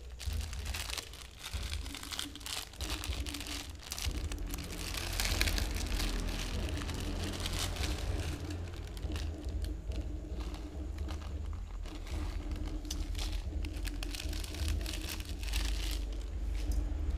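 Plastic instant-noodle packet crinkling and being torn open as it is handled, a dense run of irregular crackles, with a steady low rumble underneath.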